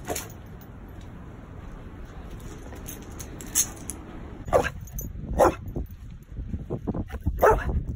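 A dog giving several short barks in the second half.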